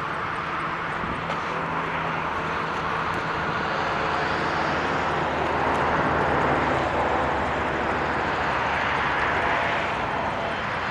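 Air Canada Boeing 777-300ER's twin GE90 turbofans passing by. The roar swells to its loudest around the middle and then eases slightly.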